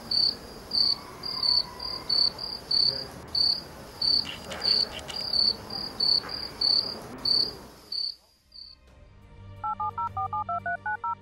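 Crickets chirping in short, evenly spaced high chirps, about three a second, stopping about eight seconds in. Near the end comes a quick run of phone keypad tones, two-tone beeps, as a number is dialled.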